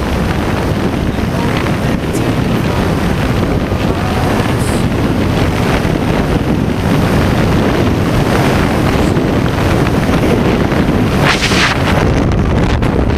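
Loud, steady wind buffeting a hand-held camera's microphone in tandem skydiving freefall, with a brief sharper rush of higher hiss near the end.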